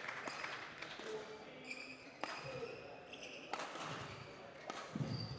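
Badminton shoes squeaking on the court floor, with a few sharp knocks of racket hits on the shuttlecock and footfalls, the heaviest thud near the end.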